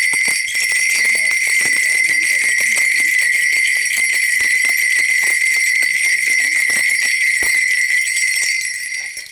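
A Korean shaman's cluster of ritual bells (mudang bangul), shaken rapidly and without pause in a loud, bright jingling ring during a spirit divination.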